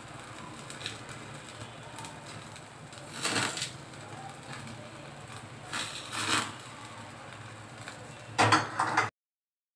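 Gas stove burner running under chicken drumsticks on a wire grill rack, with a few short louder bursts as flames flare up around the meat. The sound cuts off suddenly near the end.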